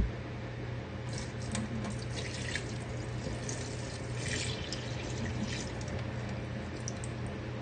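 Water trickling and splashing in irregular bursts over a steady low hum, with a sharp click at the start.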